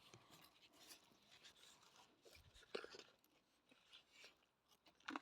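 Faint scraping and crunching of soil being dug away around a garlic bulb, with a few sharper ticks, one near the middle and one at the end.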